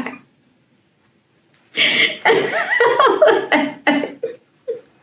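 A woman laughing in short repeated bursts, breaking off for about a second and a half near the start, then laughing again.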